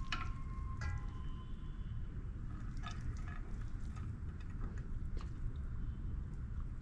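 Metal serving spoon scooping rice out of a pot onto a plate: a clink near the start with a short ringing tone that fades, then soft scraping and a few light taps over a low background hum.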